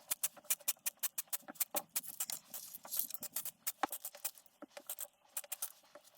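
Small hard parts clicking and tapping as they are handled, a rapid, irregular run of light ticks, several a second.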